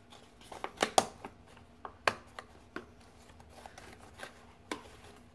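Small cardboard box and paper packaging being handled and opened by hand: a series of sharp clicks and taps with light rustling, the loudest about one and two seconds in.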